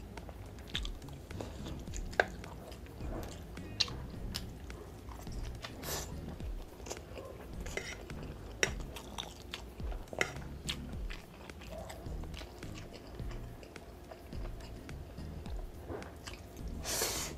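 Mouth sounds of a person eating a hotdog and cheesy instant noodles: chewing and biting with many small wet clicks and smacks, and a short slurp of noodles about a second before the end.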